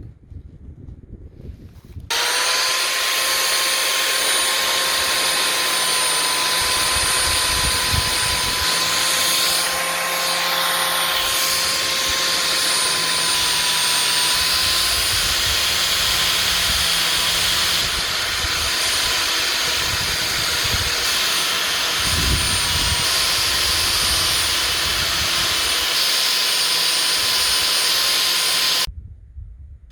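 Angle grinder running steadily on an engine valve to clean it, a constant high motor whine over a loud hiss. It starts abruptly about two seconds in and cuts off abruptly just before the end.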